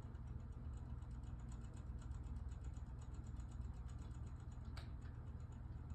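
Inexpensive quartz wall clock's movement ticking rapidly, several light ticks a second, as it advances its hands to set itself. One sharper click about five seconds in.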